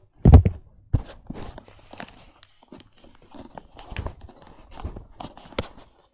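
Handling noise: a loud thump about a third of a second in, then scattered light knocks, taps and clicks with soft rustling between them.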